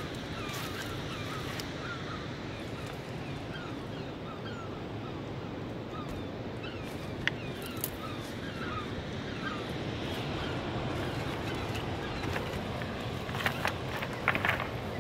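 Birds calling in many short, repeated chirping notes over a steady background rush, then footsteps on beach pebbles giving a run of sharp clicks near the end.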